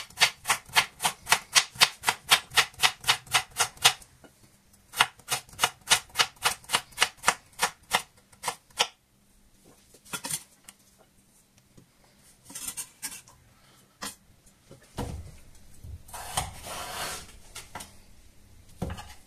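Chef's knife slicing a raw potato thinly on a slate cutting board: quick, even knocks of the blade on the slate, about five a second, in two runs of about four seconds each. Then a few scattered knocks and scraping as the slices are pushed aside and the next piece is cut.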